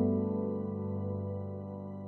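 Slow instrumental relaxation music: a held chord fading away, with no new notes struck.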